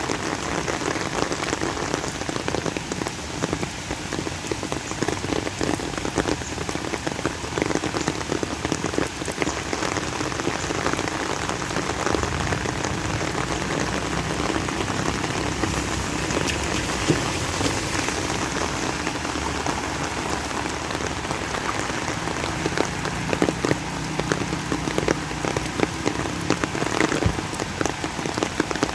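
Steady rain falling, a dense hiss thick with the patter of individual drops hitting nearby surfaces.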